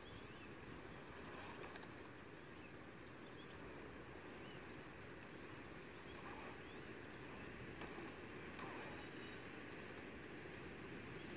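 Faint, steady outdoor background noise with a few faint bird chirps.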